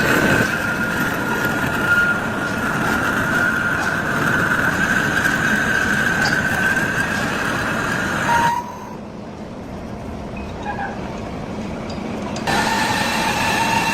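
Heavy lathe turning a large cast pulley: steady machine noise with a high, held squeal from the cutting tool on the metal. Past the middle the sound drops suddenly to a quieter, duller level and comes back about four seconds later with a slightly different pitch.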